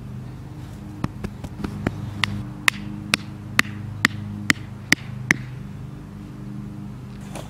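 A hammer driving a wooden marker stake into garden soil: a few uneven taps, then about eight evenly spaced ringing blows, one every half second, that stop a little past the middle. A steady low engine hum runs underneath.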